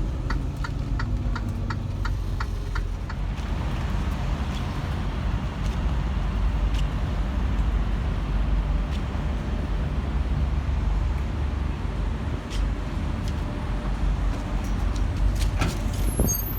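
Semi truck's diesel engine running steadily while driving, with a turn signal ticking about three times a second for the first three seconds.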